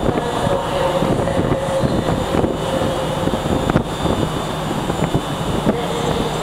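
Steady, loud mechanical rumble of trains standing in the station, with a faint steady hum over it.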